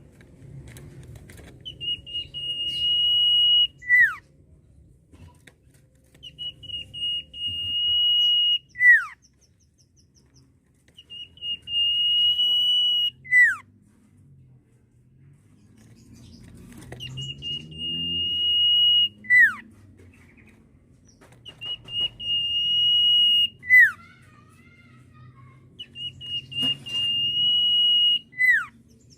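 Common iora's signature whistle: a long, steady, high whistle that ends in a quick downward slur. The phrase repeats six times, about every four to five seconds, and each is led in by a few short notes.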